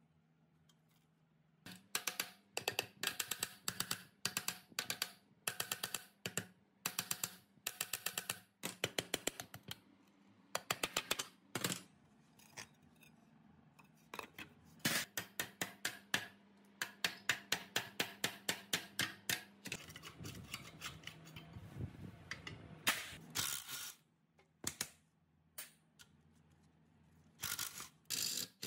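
Quick runs of light metallic taps and clicks, several strokes at a time at about four or five a second, from hand-tool work on a rusty concrete plate-vibrator motor as it is taken apart.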